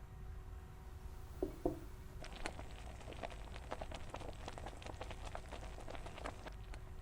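Cooking in a pan: two short low knocks, then about four seconds of irregular light clicks and pops, over a faint steady hum.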